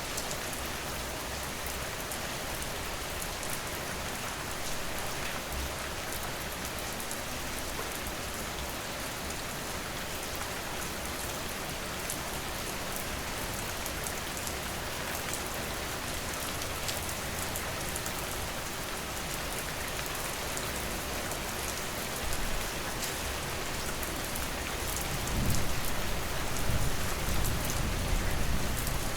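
Steady rain falling on surfaces, a dense even hiss with many fine drop ticks. A low rumble swells in near the end, making it louder.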